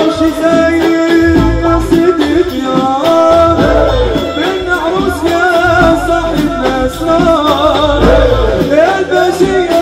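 Tunisian soulamiya Sufi ensemble performing: a men's chorus sings a religious chant over bendir frame drums beating steadily.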